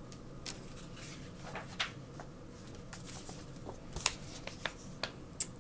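Paper rustling with a few short clicks and taps as a drawing on card and a large paperback picture book are handled and the book's pages are turned.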